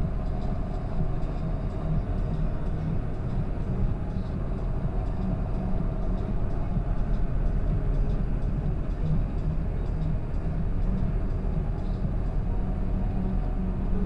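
John Deere 7530 tractor's six-cylinder diesel engine running at a steady road-travel speed, heard from inside the cab as a constant low drone.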